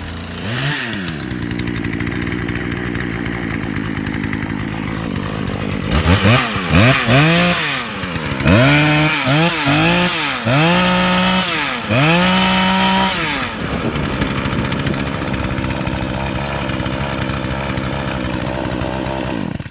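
Poulan-built Craftsman 42 cc two-stroke chainsaw firing up and idling, then revved in a series of quick throttle blips about six seconds in, the last two held at high speed, before dropping back to idle and being shut off at the end. It is running well on fresh fuel and a replacement Champion spark plug, after failing to start with a bad Torch plug.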